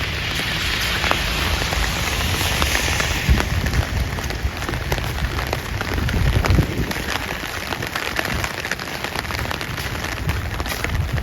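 Steady rain falling, with many small, sharp raindrop ticks close to the microphone over a low rumble.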